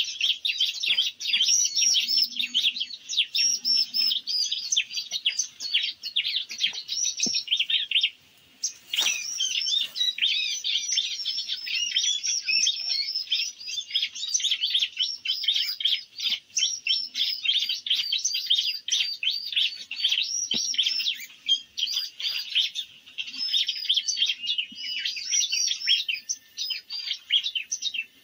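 Dense, continuous high-pitched chirping and twittering of small birds, with a brief pause about eight seconds in, followed by a single sharp click.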